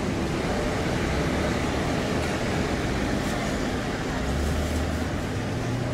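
Street ambience: steady traffic noise with indistinct voices, and a low engine hum that swells about four seconds in.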